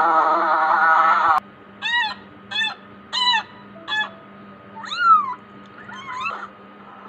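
A loud, steady, buzzing animal sound stops abruptly about a second and a half in. It is followed by an animal calling six times in short, high cries that rise and fall in pitch, the later ones sliding downward.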